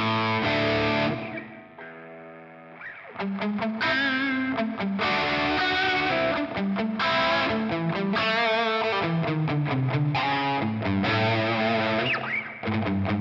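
Electric guitar played through the distortion of a Valeton GP200 multi-effects processor: distorted chords and riffs, with one chord left ringing and fading about two seconds in before the playing picks up again.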